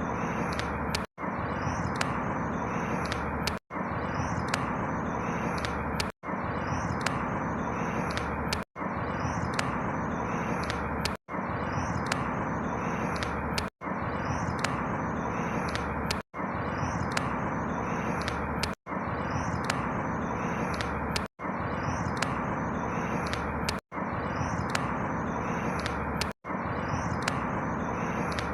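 Steady outdoor ambient noise, a roughly two-and-a-half-second stretch looped over and over, with a brief dropout to silence between each repeat.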